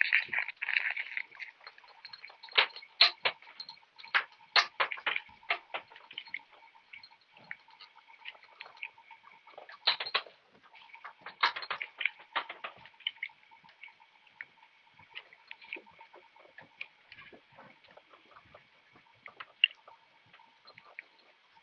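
Irregular clicks and crunches from deer moving about and feeding in snow, heard through a night-vision camera's tinny microphone, with a faint steady high whine beneath. They come thickest a few seconds in and again around the middle, then thin out to scattered ticks.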